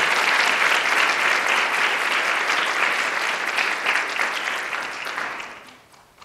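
Audience applauding steadily, dying away about five and a half seconds in.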